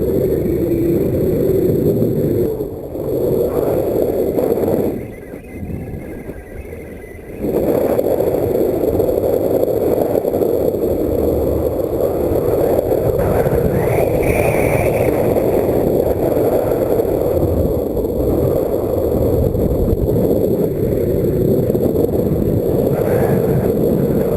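Wind buffeting the microphone as a steady, loud rush, easing for about two seconds around five seconds in.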